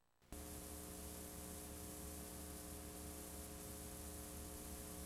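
Faint steady hiss with a low electrical hum from a VCR playing a blank stretch of VHS tape, cutting in suddenly just after the start.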